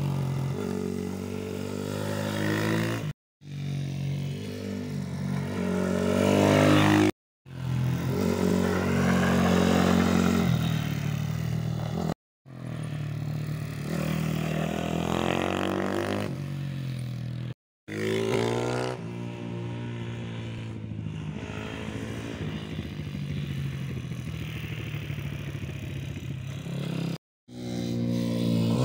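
Pit bike engine revving as the bike laps a small circuit, its pitch climbing and dropping through the corners and gear changes. The sound breaks off for a moment five times.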